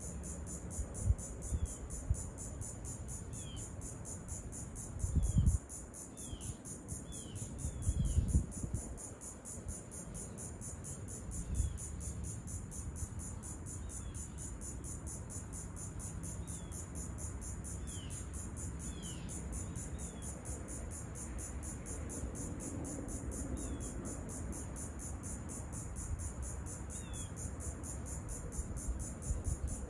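Steady daytime insect chorus, a fast pulsing high-pitched buzz that never lets up, with short falling bird chirps scattered through it. Two brief low rumbles come about five and eight seconds in.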